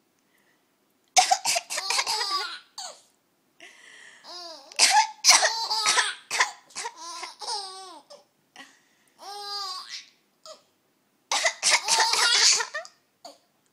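An adult coughing in short fits and a baby laughing at the coughs. There is a coughing fit about a second in and another near the end, with high, squealing baby giggles in between.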